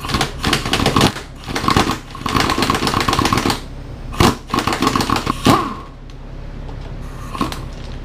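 Pneumatic impact wrench hammering in several short bursts over about six seconds, with a steady whine under the hammering, as it loosens and backs out a motorcycle's lower subframe mounting bolt; one brief blip of the wrench near the end.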